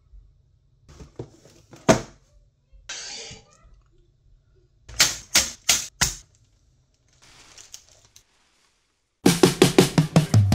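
Unpacking a LEGO set on a table: cardboard and plastic bags rustle, and there are scattered taps and sharp clicks of plastic pieces and packaging. About nine seconds in, a fast run of drum hits starts the background music.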